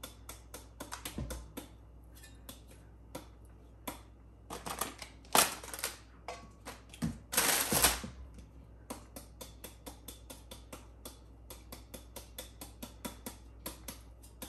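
Kitchen knife chopping rapidly into a peeled green papaya held in the hand, a run of short crisp strikes at about three to four a second, as the flesh is hacked and shaved into shreds for papaya salad. Two louder, longer swishes come about five and seven seconds in.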